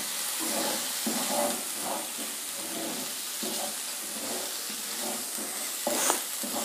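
Ginger-garlic paste sizzling in oil in a frying pan, being sautéed while a wooden spatula stirs and scrapes across the pan, with one louder scrape about six seconds in.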